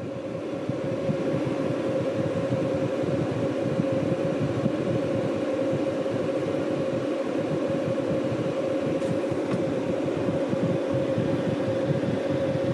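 Growatt 5000ES solar inverter running, a steady mechanical hum with a single steady mid-pitched tone over it, growing louder over the first second and then holding. Up close it is pretty loud, about 74.5 dB(A), even though the inverter is not at full power.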